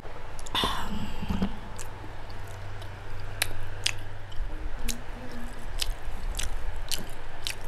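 Close-miked eating sounds: a glass water mug set down on the wooden table about half a second in, a swallow, then chewing of pork and rice with sharp wet mouth clicks and smacks about every half second.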